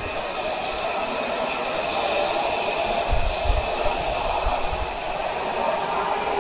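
Washington Metro subway train moving past close along an underground platform. Its wheels and motors make a steady rushing noise with a constant high whine.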